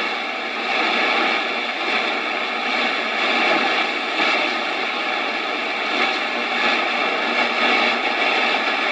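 Radio Shack DX150A shortwave receiver giving out a steady hiss of band static through its speaker, with faint steady tones running through the noise.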